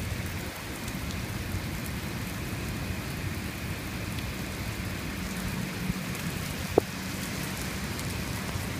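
Steady rain falling and spattering on surfaces, with a single sharp tap about two-thirds of the way through.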